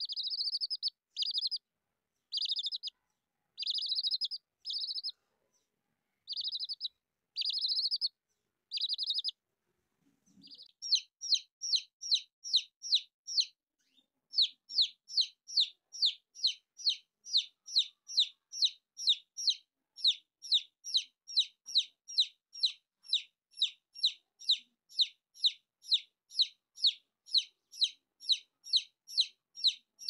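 Baby chicks peeping. For the first nine seconds or so the chirps come in short trilled clusters; after about ten seconds they become a steady run of loud single peeps, each falling in pitch, about two a second.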